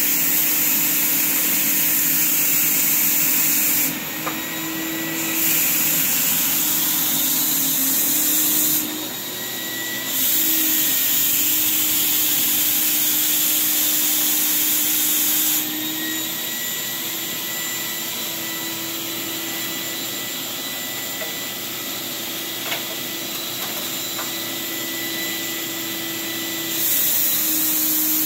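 HVLP turbine paint sprayer running with a steady motor drone. Loud air-and-paint hiss from the spray gun comes in four long passes of several seconds each while the trigger is held, laying down a base coat, with quieter turbine-only stretches in between.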